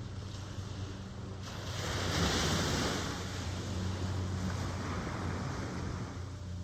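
Ocean waves: a wave breaks and washes in with a surge of hiss about a second and a half in, then eases to a steady wash. A steady low hum runs underneath.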